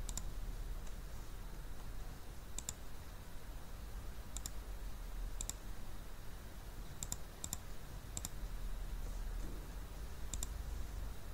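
Computer mouse clicks: about eight single clicks spaced one to two seconds apart, two of them in quick succession past the middle, over a low steady hum.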